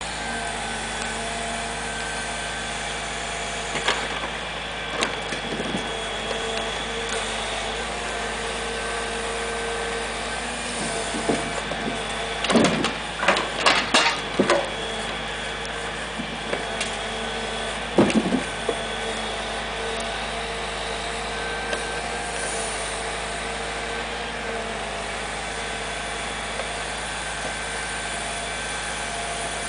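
Log truck's engine and crane hydraulics running steadily as the knuckleboom loader works. A cluster of loud knocks comes near the middle and a single one a few seconds later, as the grapple sets logs down.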